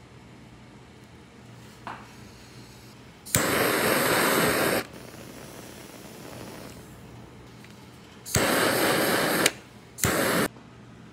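Handheld kitchen torch firing in three bursts of hissing flame, the first two over a second each and the last about half a second, each starting abruptly with a click, while browning and charring marshmallows.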